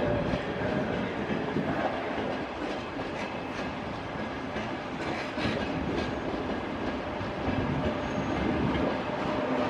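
A train moving along the tracks, its wheels clacking over rail joints and points, with a steady running rumble.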